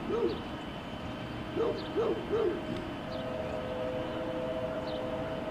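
A bird giving short, arched, hooting coos: one note, then a quick run of three. From about three seconds in, a faint steady chord from a distant locomotive horn comes in, as the approaching freight train sounds its horn.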